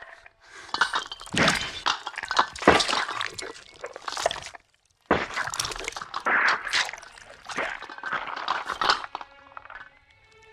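Film sound effect of cracking, crunching and breaking with clinks, in two long passages split by a short silence about four and a half seconds in. Near the end it fades, and a faint pitched creature cry begins.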